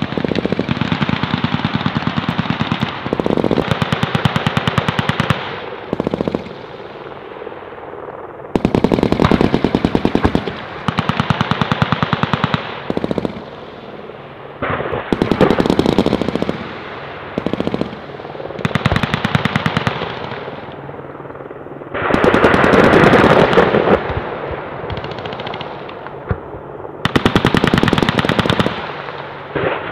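Machine-gun fire in repeated bursts, about ten of them, each a second or two of rapid shots, with the loudest burst a little past two-thirds of the way through.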